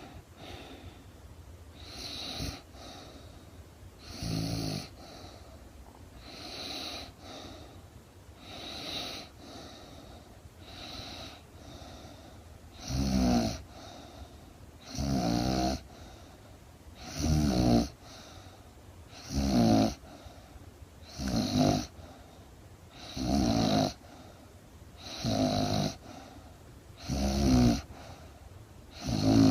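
A woman snoring in her sleep, one snore about every two seconds. The first few snores are soft; from about halfway through, each snore is much louder.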